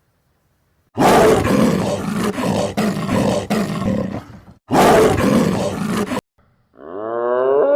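A large animal roaring in two loud, rough, pulsing bouts, the first about three and a half seconds long and the second shorter. Near the end a drawn-out pitched call begins, rising steadily.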